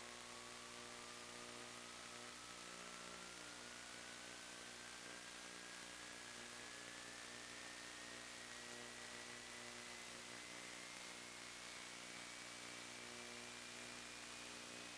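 Steady hiss and electrical hum, the static of an FPV video link's audio channel, with a faint thin tone that rises slowly in pitch.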